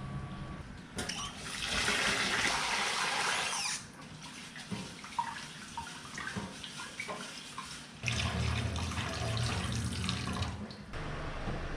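Tap water running into a metal rice-cooker pot for about three seconds while rice is washed, then small splashes as the rice is swished by hand. About eight seconds in, water runs again as the rinse water is poured off into the sink.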